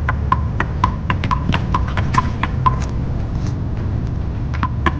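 One-wall paddleball play: sharp pops of paddles hitting a rubber ball and the ball hitting the wall. About a dozen come in quick succession over the first three seconds and two more near the end, over a steady low rumble.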